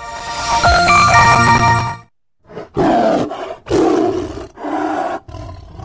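A short musical logo sting, then, after a brief silence, a tiger roaring in three rough bursts.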